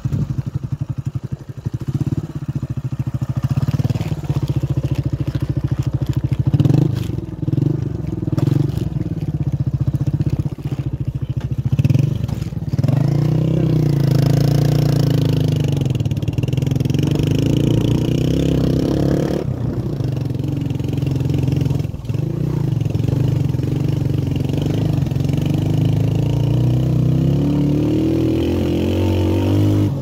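Motorcycle engine running under load on a steep, rough climb, its pitch rising and falling as the rider works the throttle. It is uneven with rattles for the first half, then steadier and stronger.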